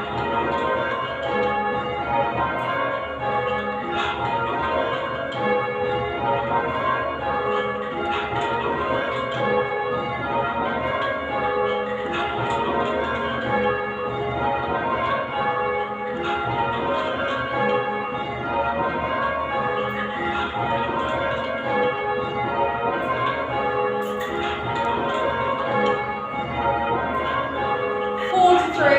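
Change ringing on a light ring of eight Whitechapel-cast church bells (tenor about 10 cwt, in A flat). The bells strike one after another in repeated descending rows about every two seconds. A short falling sound cuts in near the end.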